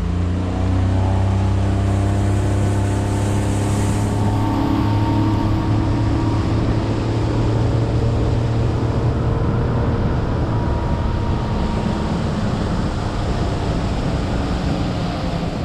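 Boat outboard motor throttling up, rising in pitch over the first second, then running steadily at cruising speed, with wind and water rushing past.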